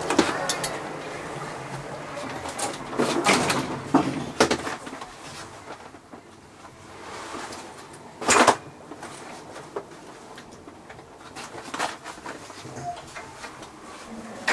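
Scattered knocks, clicks and clatter over a steady background, with the loudest knock about eight seconds in.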